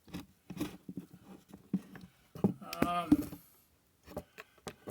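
Scattered light knocks and clicks of kitchen utensils and dishes being handled, irregular and without a steady rhythm, with a brief murmur of voice near the middle.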